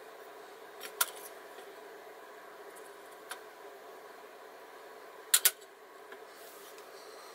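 Small metal taps and clicks as a Coleman 200A lantern's brass generator tube and its rolled stainless-mesh insert are handled over a stainless steel tray: a tap about a second in, a faint one around three seconds, and a sharp double click, the loudest, about five and a half seconds in. A faint steady hiss runs underneath.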